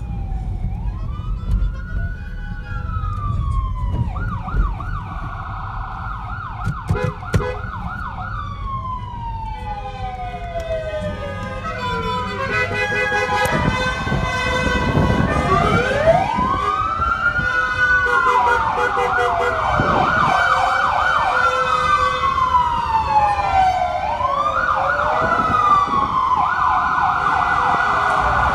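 Several novelty siren horns on rally cars sounding at once, overlapping slow rising-and-falling wails and fast warbling yelps over a low engine rumble. The sirens grow louder and more numerous from about halfway through.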